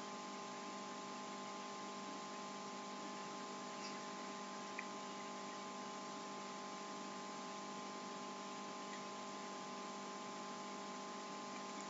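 Steady low background hum and hiss, several constant tones with no change, as in a home recording's mic and room noise; two faint clicks about four and five seconds in.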